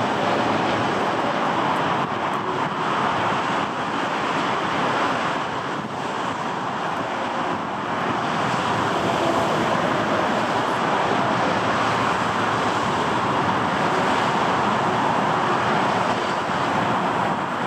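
Airbus A330-941's Rolls-Royce Trent 7000 turbofans at take-off thrust, a steady roar through the take-off roll and lift-off, mixed with wind on the microphone.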